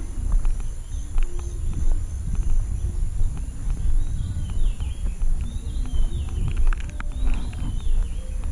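Footsteps on a gravel path at a steady walking pace, heard close to the microphone. Birds call in the background, with short whistled chirps about halfway through.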